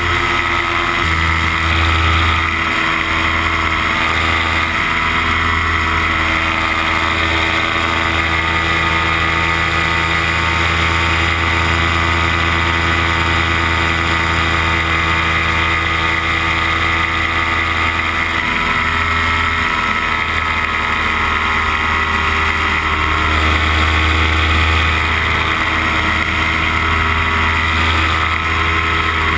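Paramotor's two-stroke engine and propeller running steadily in flight, an even drone at constant throttle.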